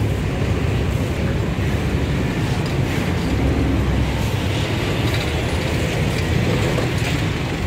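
Steady low rumble of a vehicle engine running, with general street noise.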